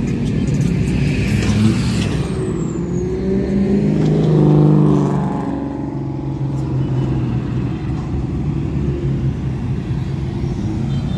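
Street traffic of cars and motorcycles cruising past, their engines running steadily, with one louder engine passing by about four to five seconds in.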